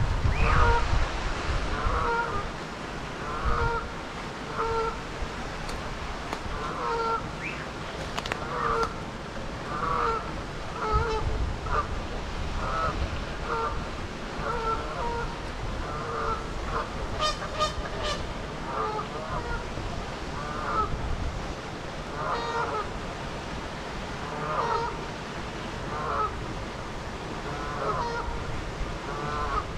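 A group of Canada geese honking, short calls following one another about once a second without a break.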